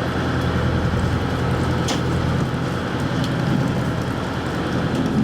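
Fishing boat's engine running steadily under a hiss of wind and water, with a small click about two seconds in.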